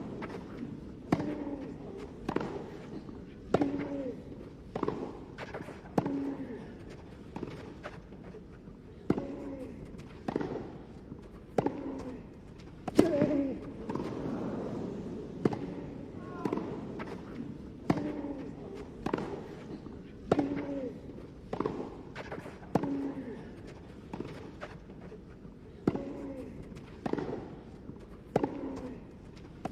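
A tennis rally: racket strikes on the ball about every second and a quarter, with a player grunting on many of the shots.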